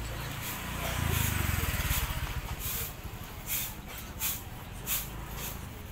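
Open-air market lane ambience. A small motor engine runs close by for about two seconds, loudest about a second in. Then steady walking-pace footsteps tick on the wet pavement over a background hiss.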